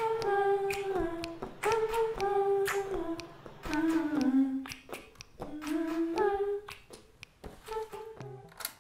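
A high voice humming a short tune without accompaniment, in held notes that step up and down, with sharp clicks or taps between the notes.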